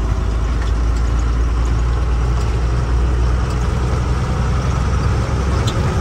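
Truck engine running with a steady low drone; shortly before the end its pitch shifts up a little.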